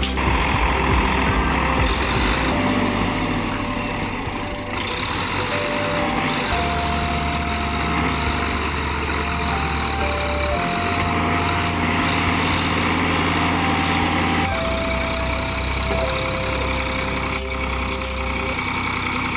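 Sonalika DI 745-III tractor's diesel engine running under load as it tries to pull a loaded sand trolley stuck in sand. Background music plays over it, with a bass note that changes about every four seconds.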